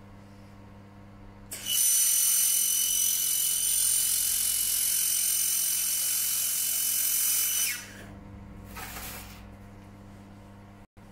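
A 1,500 W handheld fiber laser welder running a seam weld on about 2.6 mm carbon steel: a loud steady hiss with a high whine, starting about a second and a half in and cutting off sharply about six seconds later, then a brief fainter hiss about a second after. A low steady hum runs underneath.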